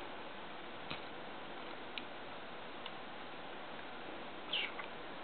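Faint ticks about once a second, three times, over a steady low hiss, with a brief soft sound near the end.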